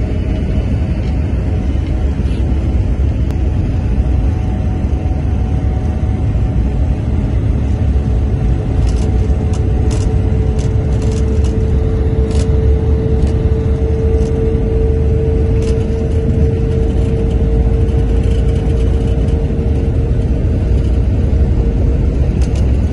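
Airliner engines at takeoff power heard from inside the cabin with the wheels rolling over the runway: a loud, steady, deep rumble. A steady whine grows stronger about eight seconds in, and a run of light clicks comes around the middle.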